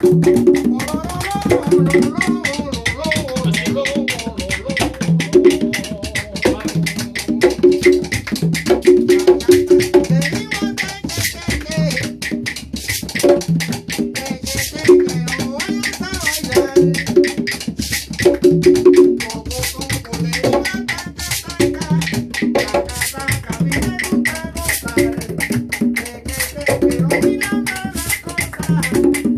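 Cuban rumba percussion: three conga drums (salidor, tres golpes and quinto) with wooden cajones play a dense, interlocking rhythm of open tones and slaps that continues without a break.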